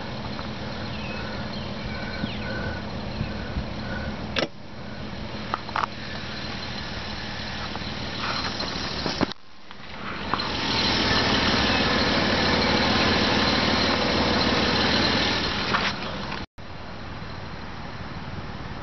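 2001 Nissan Pathfinder's 3.5-litre V6 idling steadily, with a few handling clicks. A louder rushing noise rises about ten seconds in and lasts about five seconds, then the sound cuts out for a moment.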